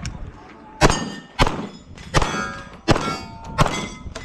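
Rapid pistol shots, five at roughly 0.7-second intervals, each followed by the ring of a steel target plate being hit.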